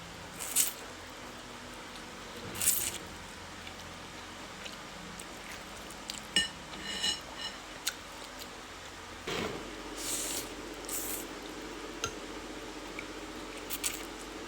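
Close-miked mukbang eating sounds of yamien noodles: scattered short, wet chewing and mouth noises, a few of them sharp, spread out with pauses between.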